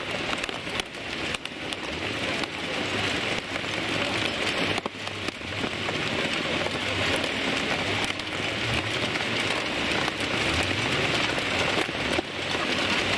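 A heavy storm of rain and hail pelting down in strong wind, a dense steady hiss, with the engines of race cars crawling past faintly beneath it.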